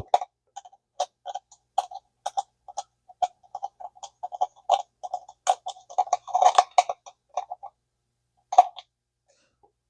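Light, irregular clicks and scrapes of a screwdriver turning the small cover-lock screw down into a Zebco 600 spincast reel, two or three a second, with a short pause near the end and a single last click.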